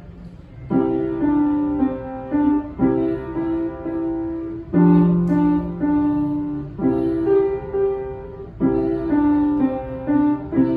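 Upright piano played by a young child: a simple melody in short phrases of about two seconds each, with lower notes held under some of them, starting about a second in.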